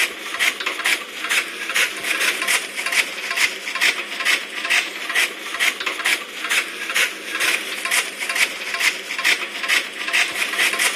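Chaff cutter blades chopping green fodder grass, a rhythmic run of sharp cutting strokes about twice a second with the rattle of chopped pieces dropping out of the machine.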